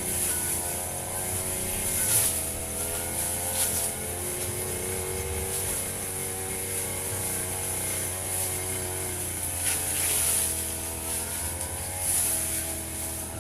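Firman FGB 528 two-stroke petrol brush cutter running at working speed while cutting grass, its engine pitch rising and falling as the cutting head meets the grass.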